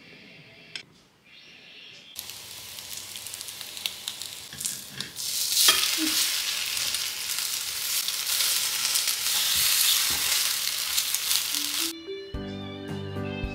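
Egg-soaked baguette slices sizzling as they fry in a pan. The sizzle starts about two seconds in, grows louder about halfway through, then cuts off near the end, where gentle music begins.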